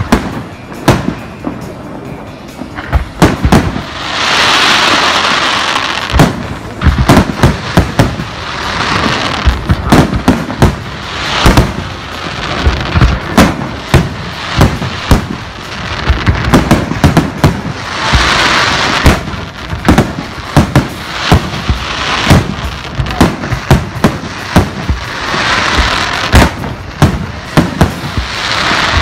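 Aerial fireworks display: a rapid, irregular string of sharp shell bursts and bangs. Four times it breaks into a dense hissing crackle lasting a second or two.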